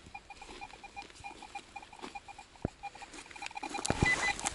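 A metal detector's electronic beep: a short tone pulsing several times a second, which runs on steadily for about a second near the end. A few sharp knocks and some rustling are heard toward the end.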